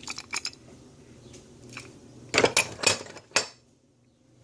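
Metal wrenches clinking and clattering against each other as they are handled: a few quick clinks at the start and a louder cluster about two and a half to three and a half seconds in.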